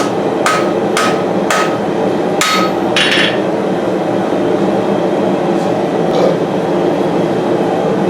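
Forging hammer striking hot steel on an anvil: five blows about half a second apart, each with a short ring, stopping about three seconds in. A gas forge burner runs steadily underneath.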